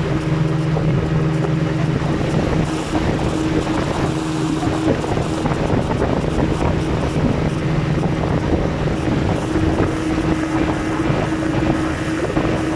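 A river boat's motor running at a steady speed with an even low hum, under heavy wind noise on the microphone from the boat's motion.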